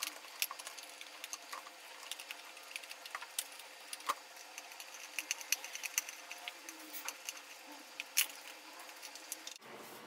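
Small Phillips screwdriver turning screws into an iMac G4's metal base plate: a run of faint, irregular clicks and ticks.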